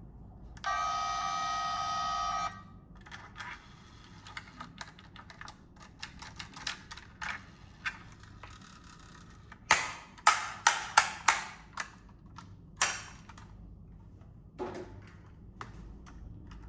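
Packaging being handled: a string of small clicks and crackles, with a run of sharp, loud snaps about ten seconds in. Near the start there is a brief steady buzz, about two seconds long.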